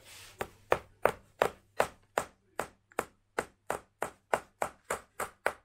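Steel hammer tapping a thick nail into a thin wooden stick. About sixteen sharp strikes come at roughly three a second, growing a little quicker and lighter toward the end.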